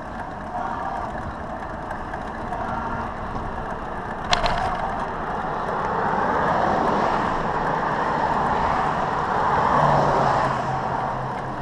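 Steady road noise of riding along a street, with a motor vehicle passing: its sound swells from about halfway through, peaks near the end and then fades. A single sharp click about four seconds in.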